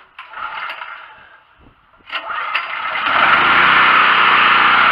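Brand-new Sportsman 4000-watt propane generator's 7 HP four-stroke engine being cranked twice on its first start: it catches on the second crank about two seconds in and settles into a steady run.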